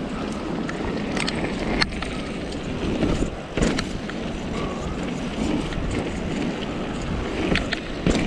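Mountain bike riding down a muddy trail: steady tyre noise and wind rushing over the microphone, with scattered clicks and knocks from the bike rattling over bumps.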